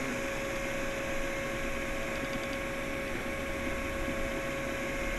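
Anet A8 3D printer printing: its stepper motors whine steadily as the hotend moves back and forth over the bed, under the whir of its cooling fans.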